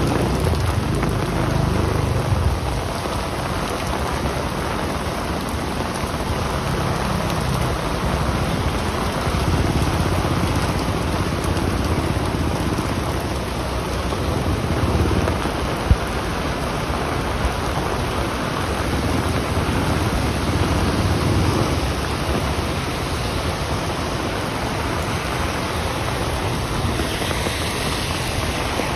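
Heavy rain pouring onto a street and pavement, a steady dense hiss. Low rumbles swell and fade every few seconds, and a single sharp click comes about halfway through.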